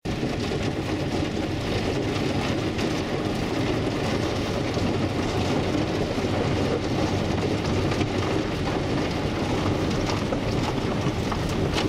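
Heavy rain and hail pounding on a vehicle's roof and windshield, heard from inside the cab as a steady, dense din over a low hum of engine and tyres, with a few sharper clicks near the end.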